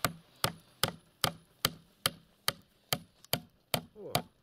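Hammer driving a nail into a wooden post: a steady run of about eleven sharp blows, roughly two and a half a second.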